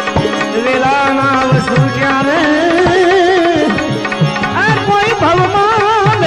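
Instrumental opening of a Gujarati devotional bhajan: tabla playing a steady rhythm, its bass drum strokes bending in pitch, under a wavering, ornamented melody on a sustained instrument.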